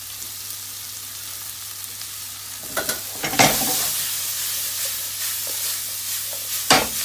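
Mushrooms and onions sizzling in hot bacon fat in a frying pan. The sizzle grows louder about three seconds in as the pan is tossed, with a few sharp knocks of the pan, and there is another knock near the end as the contents are stirred.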